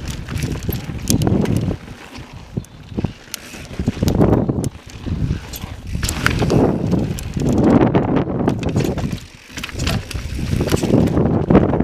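Mountain bike riding over sandstone slickrock and rocky dirt: knobby tyres rolling and scrabbling, the bike clattering and knocking over ledges and loose stones, with wind buffeting the microphone.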